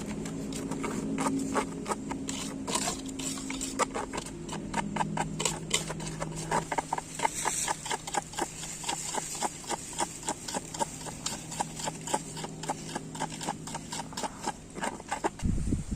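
Dry flour coating being mixed in a bowl, a run of quick light knocks and taps that settles into about three or four a second in the second half.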